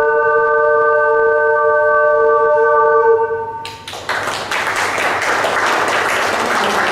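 Ocarina ensemble holding a final chord of several steady notes for about three and a half seconds, then the audience applauding.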